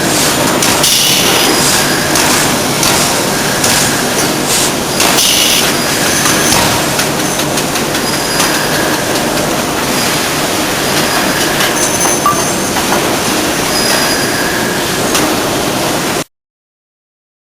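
Ring rolling mill running: loud, steady metallic machine noise with short high-pitched squeals and clanks now and then. It cuts off abruptly to silence about sixteen seconds in.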